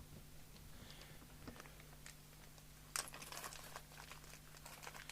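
Faint rustling and small clicks of electronic parts and their packets being handled, with a flurry of crinkly clicks about three seconds in, over a steady low hum.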